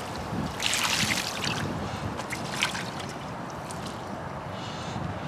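Lake water poured from a bucket over a carp on a wet unhooking mat, with a splashing rush about a second in, then a few short wet slaps and drips.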